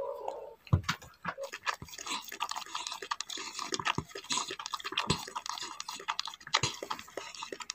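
A Japanese Spitz–Shih Tzu mother dog licking and chewing at her newborn puppy and its birth sac: irregular wet smacking and licking sounds.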